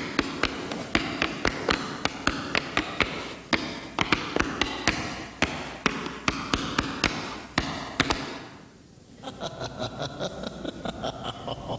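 Tap shoes clicking and stamping on a wooden stage floor in an uneven tap-dance rhythm, several taps a second. The tapping drops away briefly about eight seconds in, then picks up again more softly.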